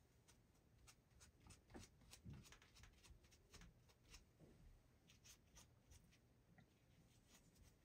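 Faint, irregular scratching and light ticks from scrubbing and handling small revolver parts to clean off carbon fouling.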